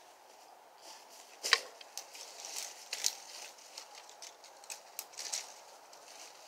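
Dry brush and twigs cracking and rustling: one sharp snap about a second and a half in, then a scatter of lighter cracks.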